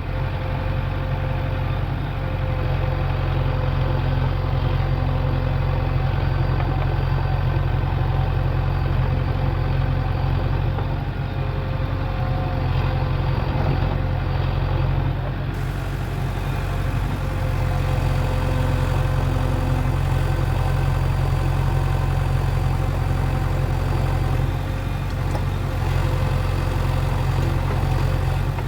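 Heavy diesel engine running steadily at a low, even pitch, with a few slight dips in level.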